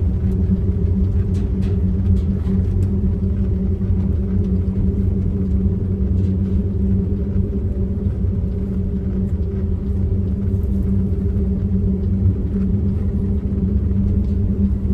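Steady low rumble of a vehicle driving on the highway, heard from inside: engine and road drone with an even hum.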